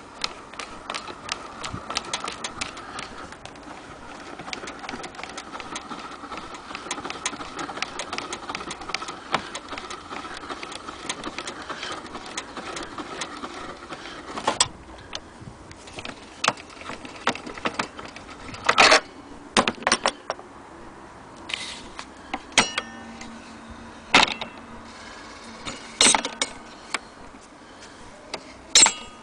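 Mechanical sounds from an HMV Model 101 portable gramophone being handled: dense, rapid clicking for about the first fourteen seconds, then scattered sharp knocks and clicks.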